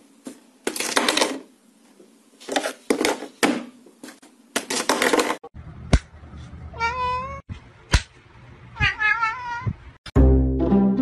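A run of loud, harsh rasping bursts. Then a cat meows twice, each meow wavering in pitch, with a sharp click before each. Music starts near the end.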